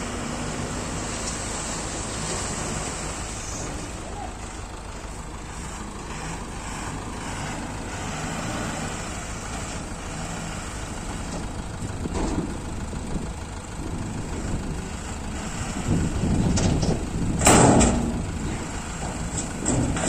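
Heavy tipper dump truck's diesel engine running steadily while the raised bed tips its load of soil and rocks. The engine grows louder toward the end, with a short, sharp burst of noise about 17 seconds in.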